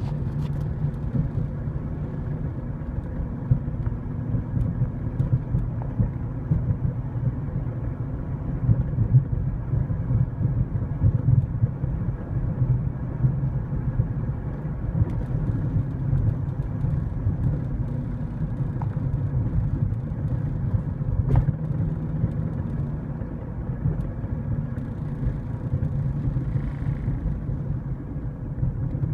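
Toyota Camry in motion, with a steady low rumble from its drivetrain: the noise of a failing CV axle.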